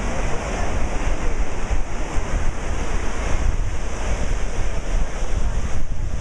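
Small surf breaking and washing up on a sandy beach, an even rushing hiss, with wind buffeting the microphone in a low, fluttering rumble.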